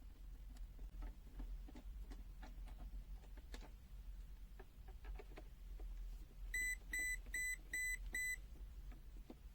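ANENG M109 digital multimeter's buzzer giving five short, evenly spaced high-pitched beeps about two-thirds of the way in: the warning that it is about to power itself off automatically. Faint ticking and a low hum lie under it.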